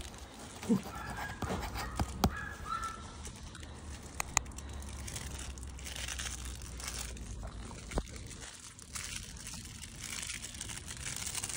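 A plush crinkle toy rustling and crackling as a wolfdog puppy noses and mouths it, with a few short high squeaks near the start and scattered light clicks.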